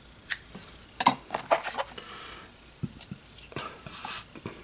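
Small metal hand tools from an FPV tool kit (snips, pliers and scissors) being handled and set down, making scattered clicks and light metallic clinks.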